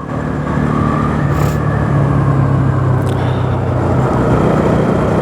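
Bajaj Pulsar NS200's single-cylinder engine running steadily while the motorcycle is ridden, its note building slightly in the first second and then holding.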